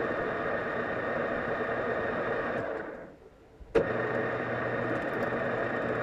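Metal lathe running while turning down a stack of steel discs, a steady machine noise. About three seconds in it fades away, then comes back abruptly with a sharp click.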